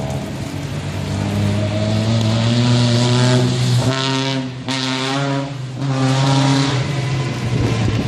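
Race car engines running hard on the circuit: a steady engine drone throughout, while one car accelerates past at high revs with a brief break in its pitch about four and a half seconds in, like a gear change, before climbing again.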